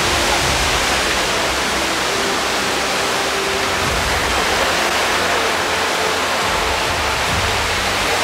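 A steady rushing noise with an uneven low rumble beneath it, much like running water or surf.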